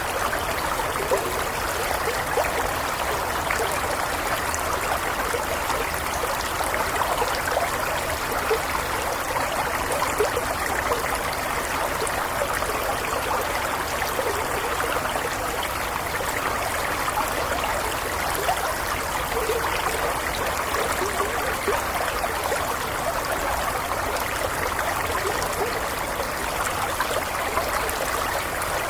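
A gentle stream flowing steadily, water babbling and trickling over rocks.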